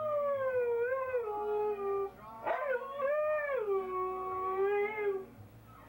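Siberian husky howling along to a song on the television: two long howls, each gliding down from a high pitch to a held lower note, the second ending about five seconds in.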